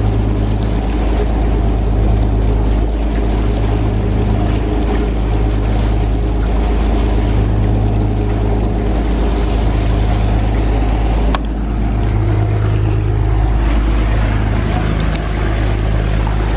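Trawler yacht's engine running under way, a steady low drone that swells and eases every second or two. A single sharp click about eleven seconds in.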